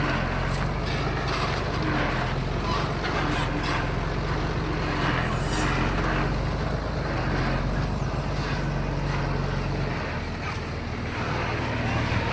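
Bulldozer's diesel engine running steadily under load, with intermittent clanking from the tracks and blade; the engine note shifts about ten seconds in.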